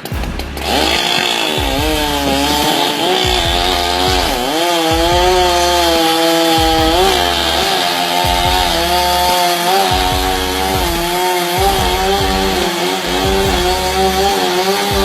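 Chainsaw running at high revs while cutting through a tree trunk. Its pitch dips several times as the chain bogs down in the wood, then recovers.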